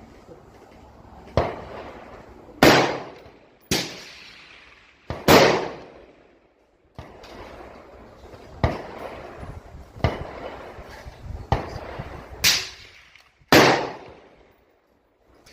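Rifle shots: a series of sharp cracks, each trailing off in a long echo, with four loudest among several lighter knocks spaced a second or more apart.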